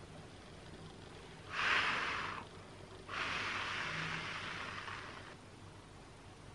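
Two puffs of breath blown out close to the microphone, a short one and then a longer, fading one, as when blowing on wet nail polish.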